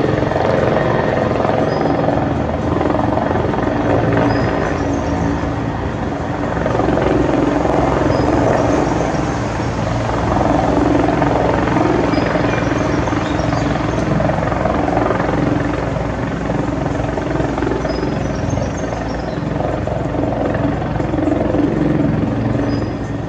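Bell 412 EP helicopter running: the thud of its four-blade main rotor over the whine of its twin turbines. The sound swells and eases every few seconds, and drops off right at the end.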